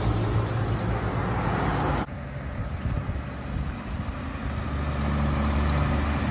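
Road traffic noise that cuts off abruptly about two seconds in, followed by a semi truck's diesel engine approaching, its low drone growing louder toward the end.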